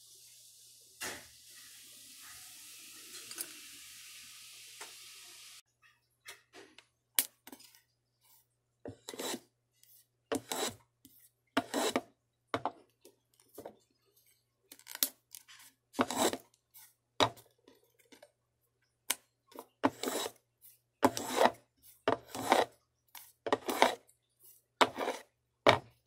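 Short, sharp scraping strokes of a hand tool worked over small pieces of wood, coming roughly once a second at an uneven pace. For the first several seconds there is only a faint steady hiss with a single click.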